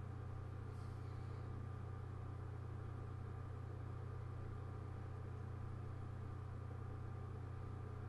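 Steady low electrical hum with faint hiss, unchanging throughout: the background noise of the voice-over recording.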